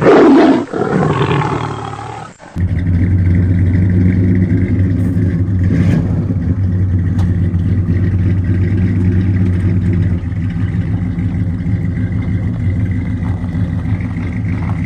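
A loud roar, falling in pitch, for about two and a half seconds. It cuts off, and then an engine runs steadily at idle with a low, even hum.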